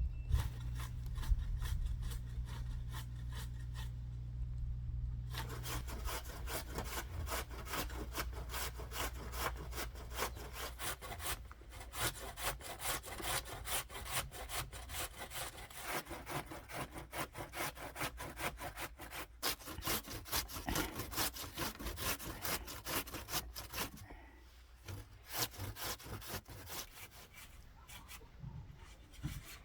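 Hand saw cutting wood in quick, steady back-and-forth strokes, which grow fainter near the end. A low steady hum sits under the first few seconds.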